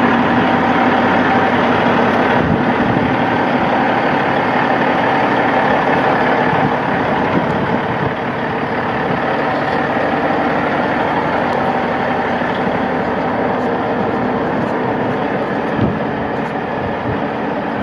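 Caterpillar 826C landfill compactor's diesel engine idling steadily, heard up close, with one small knock near the end.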